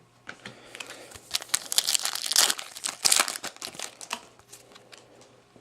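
A trading-card pack's foil wrapper being torn open and crinkled, with a run of crackly rustling from about a second in that fades near the end.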